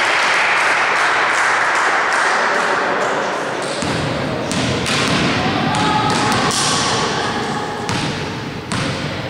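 Indistinct voices of volleyball players and onlookers calling out, with scattered thuds of a volleyball bouncing on the gym floor.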